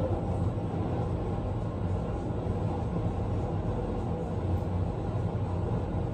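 Steady low rumbling hum of room background noise, with no distinct events.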